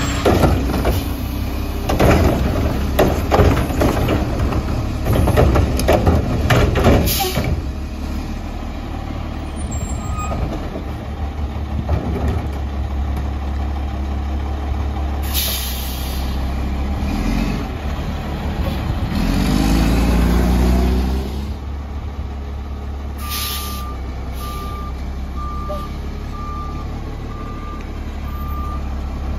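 Mack LE garbage truck with a McNeilus Atlantic front-loader body and Curotto Can arm: its diesel runs steadily under heavy clattering and banging for the first several seconds, the Curotto Can working a cart. Short air-brake hisses come about halfway and again later, and the engine revs up and falls back around two-thirds of the way in. Near the end a back-up alarm beeps steadily.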